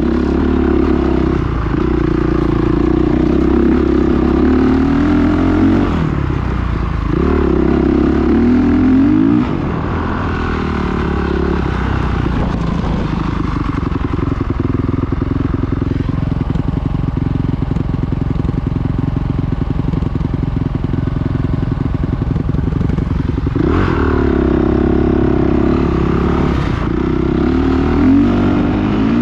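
Dirt bike engine under way on a trail, revving up and easing off twice in the first ten seconds, then chugging at low revs for about fourteen seconds before picking up revs again near the end.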